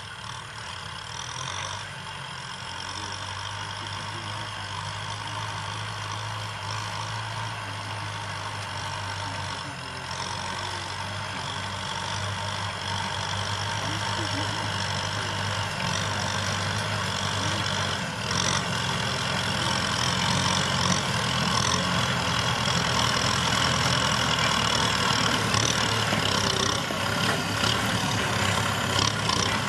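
Diesel engines of Kubota M6040SU tractors running steadily under load while pulling cultivators through dry soil. The sound grows steadily louder as a tractor comes closer.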